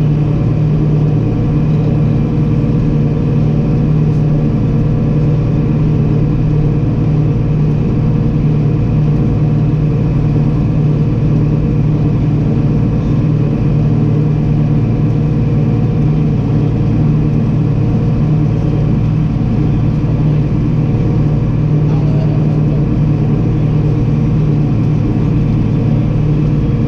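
Engine of harvest machinery running at a constant speed, a steady low drone.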